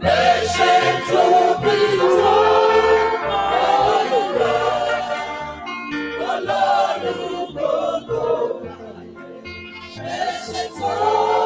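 Gospel choir and congregation singing a praise song together into microphones, with a pulsing bass underneath. The singing eases off around eight seconds in, then swells again near the end.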